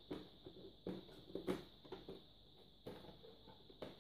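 Faint, scattered taps and light scrapes of hands fitting a clear plastic cover onto a polystyrene Apidea mating box, a few soft clicks about a second apart.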